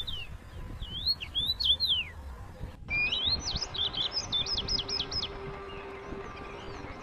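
Small birds chirping: quick, sharp notes that sweep steeply down in pitch. About three seconds in the sound cuts briefly, a fast run of repeated chirps follows, and then fainter scattered calls.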